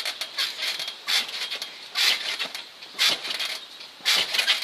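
Trampoline springs squeaking with each bounce, about one squeak a second.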